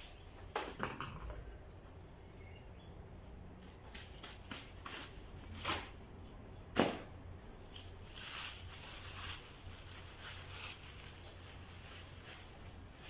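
Scattered knocks and clatters with a few brief scraping rustles; the loudest is a single sharp knock about seven seconds in.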